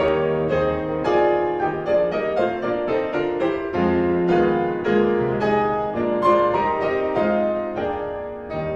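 Background piano music: a steady run of struck notes and chords, growing a little quieter near the end.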